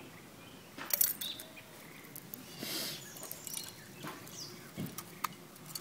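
Jewelry being dropped into a hollow figurine: two short rustles, then a few light clicks of metal pendants and beads near the end.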